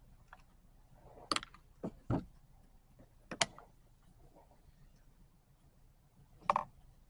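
Tools and parts clicking and knocking as a chainsaw's pull starter assembly is unscrewed and taken off: several separate sharp clicks and knocks, a cluster in the first few seconds and one more near the end.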